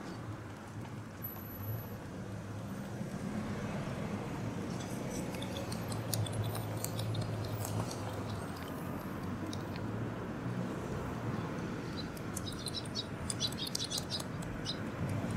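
Steady outdoor background rumble, like distant traffic, with scattered faint high ticks and chirps in two clusters, about five seconds in and again near the end.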